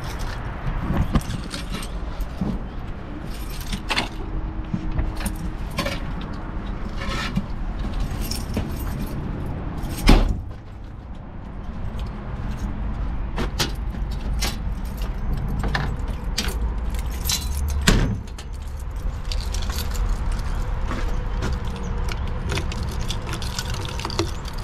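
Keys jangling and metal clicks and knocks as a wheel loader's cab door and padlock are handled, over the steady low run of a diesel engine. A loud knock comes about ten seconds in and another near eighteen seconds.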